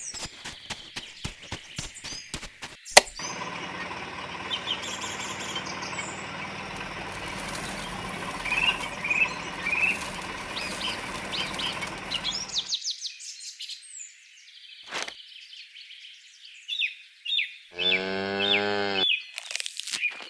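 Small birds chirping repeatedly over a steady background hiss, with a quick run of clicks in the first few seconds. A short low pitched animal call sounds near the end.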